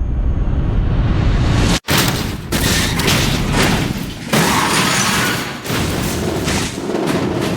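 Film sound effects of a race car crash: a low engine rumble cuts off abruptly, then after a split-second gap comes a loud run of repeated crashing impacts, booms and shattering as the car tumbles.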